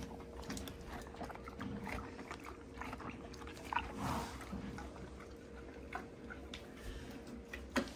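A horse chewing and snuffling right at the microphone, with scattered small knocks and rustles, over a faint steady hum.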